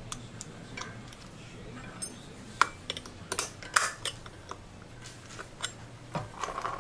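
Scattered clicks and light metallic clinks of small metal parts being handled and fitted as a belt gear goes onto the saw. The sharpest clicks come about two and a half to four seconds in.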